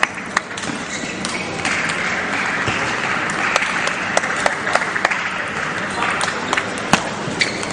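A table tennis ball clicks sharply off the bats and table to end a rally, then applause runs for about four seconds. Near the end, single clicks of the ball start again as play resumes.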